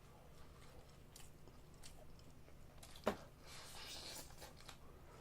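Close-miked chewing of seasoned fried chicken: soft crunches and wet mouth clicks, with one sharp click about three seconds in followed by about a second of crunchy hiss.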